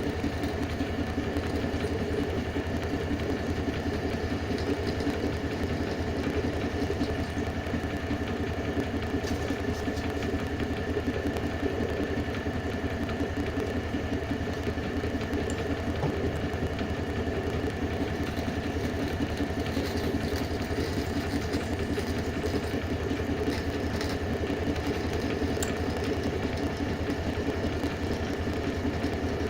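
Homemade belt sander's electric motor running steadily at an even speed, with a low hum and a thin, steady high whine.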